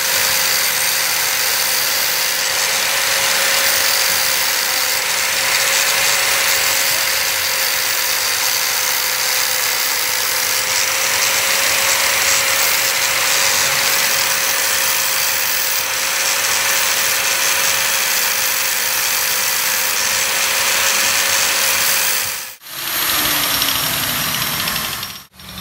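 A power tool working metal, running steadily with a loud even hiss over a steady hum. After a break near the end, a short stretch follows in which a tone falls in pitch.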